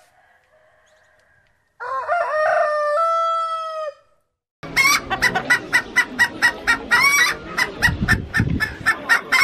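A rooster crows once, about two seconds long, starting about two seconds in. From about halfway through, chickens cluck rapidly, about four clucks a second, with one louder call among them.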